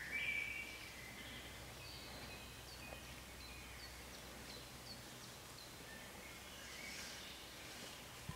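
Faint woodland birdsong: a few clear whistled notes right at the start, then a run of short, high chirps, over a low steady hum.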